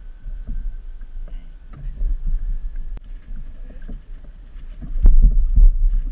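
Wind rumbling on the kayak-mounted camera microphone, with small knocks and rustles of handling aboard the kayak and a louder thump about five seconds in.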